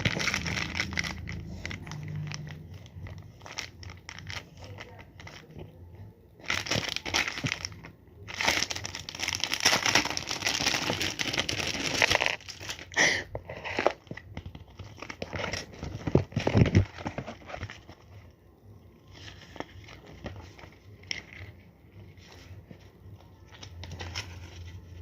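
Sticker packaging being handled and opened: irregular crinkling and rustling, loudest in two long bursts from about six to twelve seconds in, then quieter scattered rustles and clicks.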